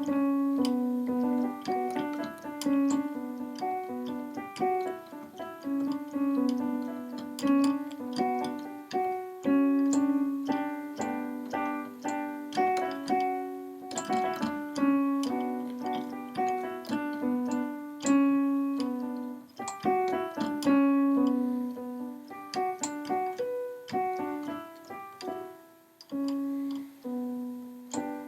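Background music: piano playing a steady run of notes with a melody over repeated lower notes.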